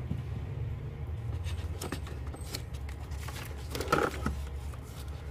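Hands rummaging among plastic solar garden lights in a cardboard box: faint clicks and scrapes of plastic and cardboard over a steady low hum.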